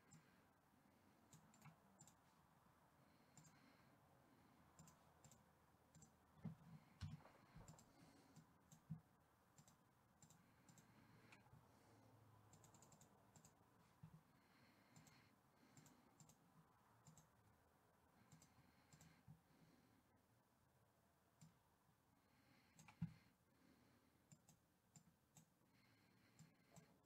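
Faint, scattered clicks of a computer mouse and keyboard, with a few louder knocks about a third of the way in and again near the end.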